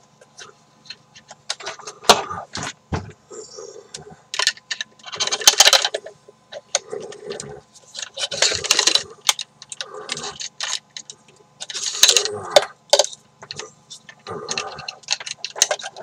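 Plastic gadget and its cables handled close to the microphone: irregular clicks, rattles and rubbing in uneven clusters.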